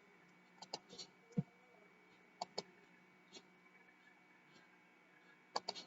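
A few faint, scattered computer mouse clicks over low room hiss and hum.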